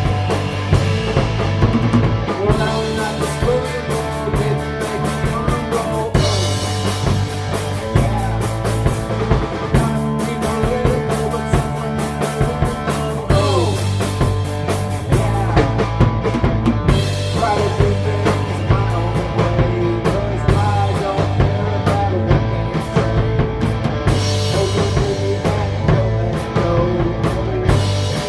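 Punk rock band playing: loud electric guitars, bass and a drum kit keeping a steady beat.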